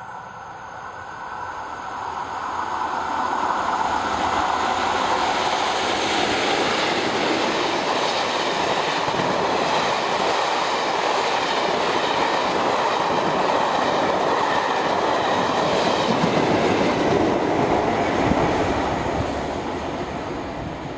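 Class 47 diesel locomotive with its Sulzer engine approaching at speed and passing, growing louder over the first few seconds. Then a long train of coaches rushes by with wheels clattering on the rails, easing off near the end.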